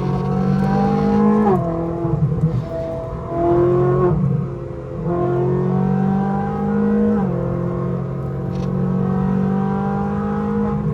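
A high-revving sports car engine pulling hard under acceleration, its pitch climbing steadily and dropping sharply at gear changes, about a second and a half in and again around seven seconds in.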